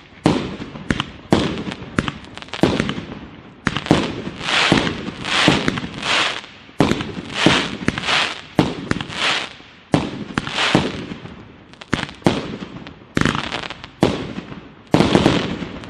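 A 1.2-inch 49-shot fireworks cake firing a quick series of shots, one to two a second. Each sharp bang is trailed by a fading hiss and the crackle of titanium crackling-flower bursts.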